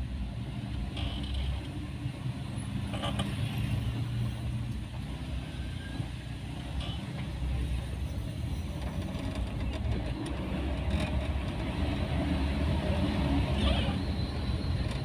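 Steady engine and road rumble inside the cabin of a moving car.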